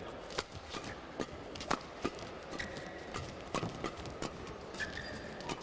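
Badminton doubles rally: rackets striking the shuttlecock in a quick, uneven string of sharp hits, with a couple of short squeaks of shoes on the court.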